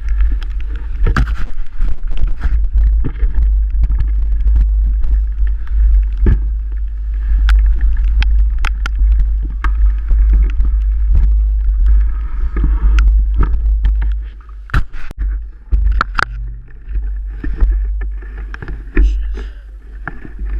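Mountain bike riding noise on a wet trail: a heavy, steady wind rumble on the microphone, with frequent sharp knocks and rattles as the bike goes over bumps, several harder ones about two-thirds of the way through.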